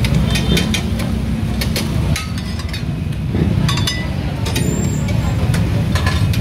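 Metal spatula clinking and scraping against a metal pan as chopped pork sisig is scooped out, a scatter of short sharp clinks over a steady low rumble.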